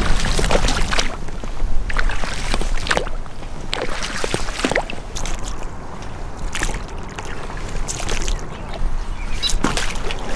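Paddle strokes splashing in lake water beside a small inflatable raft, uneven, every second or two, over a steady low rumble of wind on the microphone.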